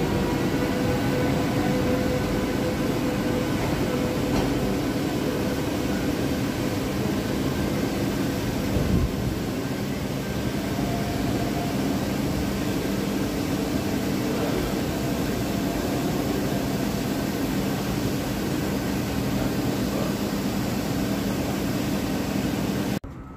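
Frecciarossa ETR 700 electric high-speed trainset pulling slowly away from the platform: a steady hum and rush with several faint, steady whining tones.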